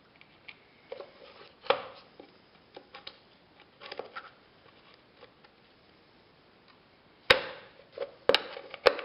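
Scattered clicks and knocks of a push reel mower's plastic wheel being worked back onto its hub, with a screwdriver and a metal shaft at the hub; three sharp, louder knocks come near the end.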